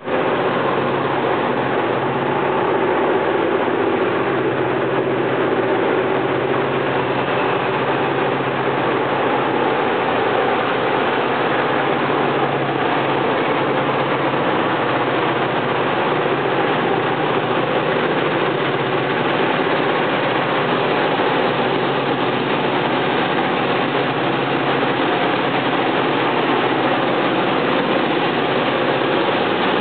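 Diesel-electric locomotives of a heavy freight train working hard under load up a grade: a steady, loud engine drone with a deep pitched throb, unchanging in level.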